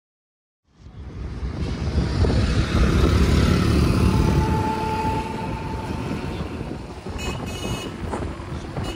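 Road noise of a moving vehicle: a steady noise heavy in the low end that fades in about a second in.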